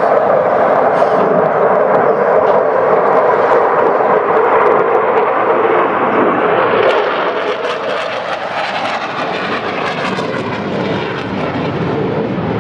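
Loud jet roar of a Sukhoi Su-22 fighter-bomber's single turbojet engine as it flies low past overhead. After about seven seconds it eases off a little and takes on a rougher, crackling edge as the jet moves away.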